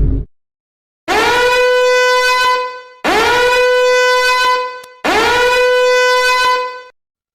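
A horn-like sound effect: three identical long blasts on one steady note, each sliding up slightly at the start and lasting about two seconds. Just before the first blast, a loud, noisy effect cuts off.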